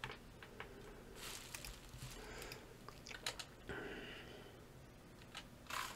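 Faint scattered clicks and soft rustles, quiet throughout.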